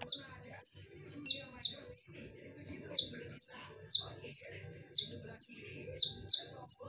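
A konin songbird calling over and over with short, sharp, high notes, each dropping quickly in pitch, about two to three a second, the notes alternating between a higher and a lower pitch.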